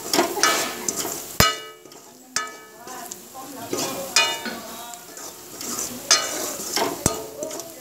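Steel ladle stirring and scraping a frying onion-garlic-spice masala around a metal kadhai, the pan ringing briefly with several strokes, over the sizzle of the oil. Two sharp clacks of ladle on pan, about a second and a half in and near the end.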